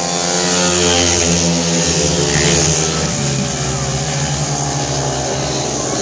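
Speedway motorcycles' 500 cc single-cylinder methanol engines racing around the track, one bike going by close. The sound swells about a second in and again about two and a half seconds in.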